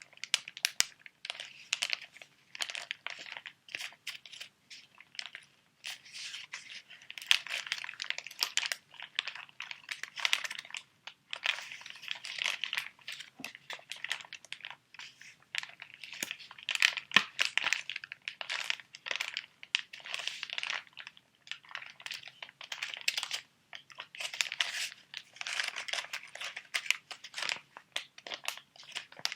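Sheet mask packets being handled close to the microphone: the plastic and foil sachets crinkle in irregular bouts, broken by sharp little crackles and clicks.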